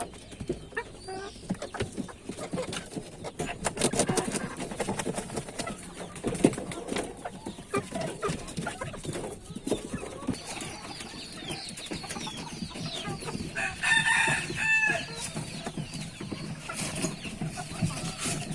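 Native (desi) chickens clucking, with a longer pitched call about fourteen seconds in and scattered sharp taps throughout.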